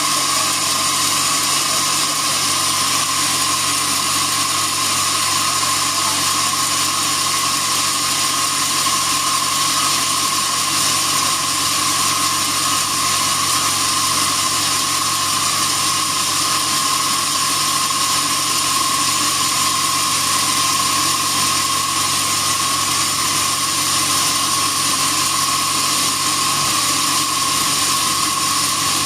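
Sawmill bandsaw running, a steady machine noise with a high whine held at one pitch throughout.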